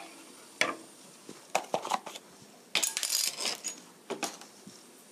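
Kitchen utensils knocking and clinking against a cooking pan: a few separate sharp knocks, with a quick cluster of bright clinks about three seconds in.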